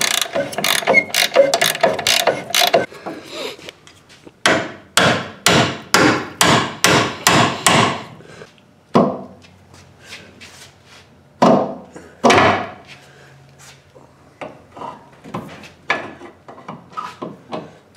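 Hand ratchet wrench clicking through repeated strokes as a rusted leaf-spring shackle bolt is turned out of its sleeve, the bolt now turning freely. Quick clicks at first, then a run of about six strokes roughly half a second apart, then a few scattered clicks toward the end.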